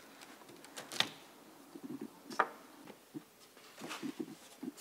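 Light knocks and taps from a wooden board and tools being handled on a workbench, with two sharper clicks about one second and two and a half seconds in.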